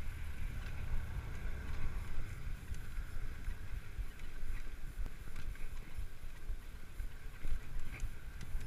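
Wind buffeting the microphone in a steady low rumble as a tandem bicycle rolls along a paved path, with a few light ticks.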